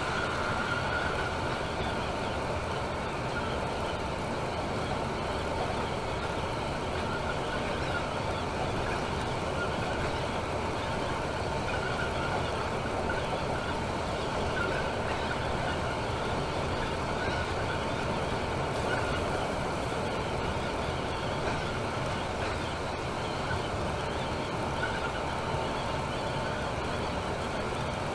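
Temsa Maraton coach cruising on a motorway, heard from inside the passenger cabin: a steady, unchanging wash of road and engine noise with a faint whine.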